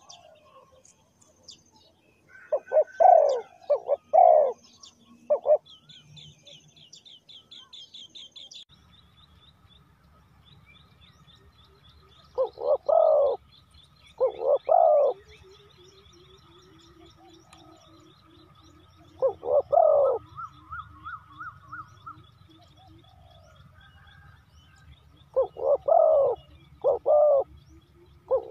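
Spotted dove cooing in short repeated phrases of two to four notes, about five phrases with pauses between them. Fainter high trills from other birds or insects and a low steady hum run under it from about a third of the way in.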